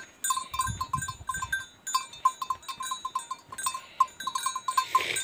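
Small metal bells on a yoked pair of plough oxen clinking in a rapid, uneven run of short pings as the team walks. A few dull thumps come about a second in.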